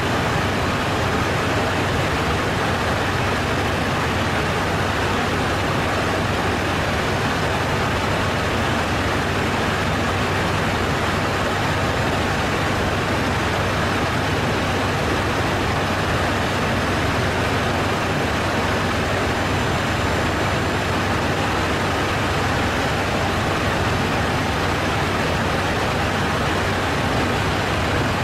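Steady rushing airflow noise inside an airliner cockpit at cruise, with a faint steady low hum underneath.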